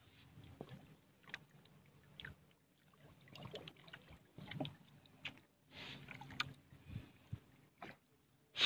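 Faint water splashes and light knocks from a small paddled fishing boat on calm water, with one louder sharp sound near the end.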